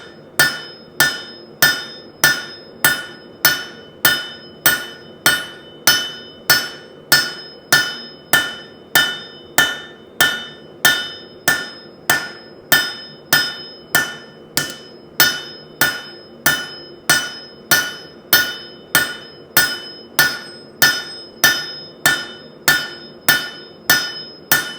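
Hand hammer striking a piece of steel being shaped into a sword, in a steady run of blows about two a second. Each blow leaves a short metallic ring.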